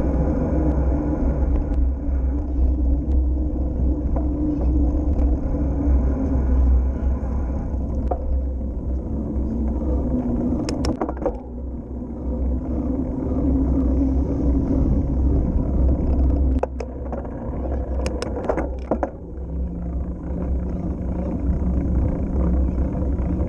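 Wind buffeting the microphone of a camera on a moving bicycle, over the rumble of tyres rolling on an asphalt cycle path. There are a few short sharp clicks and rattles from the bike about halfway through and again near the end.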